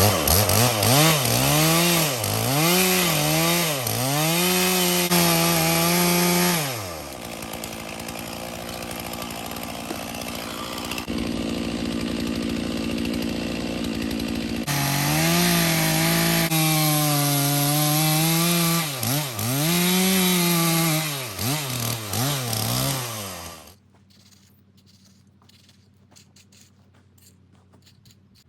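Stihl chainsaw cutting into a cedar log, its engine revving up and down again and again as it bites, with a lower steady stretch in the middle before more revving. The sound cuts off suddenly a few seconds before the end, leaving a quiet background with faint clicks.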